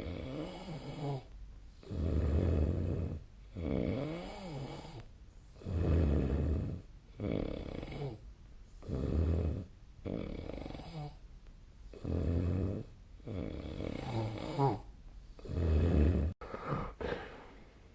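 A person snoring in sleep, in a steady rhythm of about one breath every three and a half seconds. Each breath brings a loud, low rasping snore, followed by a softer, wavering sound on the other half of the breath.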